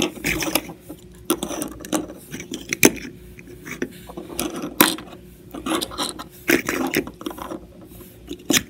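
LEGO minifigures and plastic plant pieces being moved by hand and set down on a wooden tabletop: irregular clicks, taps and scrapes of plastic on wood.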